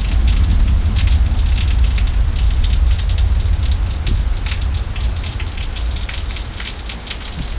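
Heavy rain falling, with a gust of strong wind buffeting the microphone. The wind comes in suddenly as a loud low rumble and eases off slowly.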